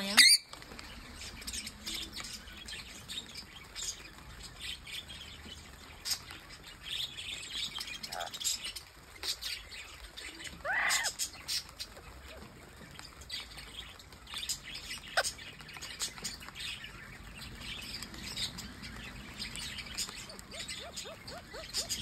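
Indian ringneck parakeets chirping and squawking, with short high chirps scattered throughout. The loudest sound is a brief sharp rising squeal right at the start, and there is a longer call that rises and falls about eleven seconds in.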